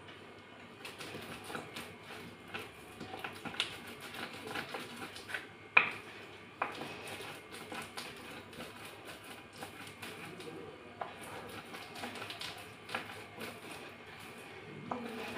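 Wooden rolling pin crushing wet slate pencil paste and grit against a stone surface: irregular gritty crackles and small clicks, with one sharp, much louder crack about six seconds in.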